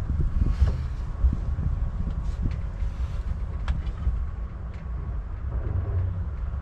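Wind buffeting the microphone as a steady low rumble, with a few light knocks and creaks as a person settles back onto a slatted wooden bed.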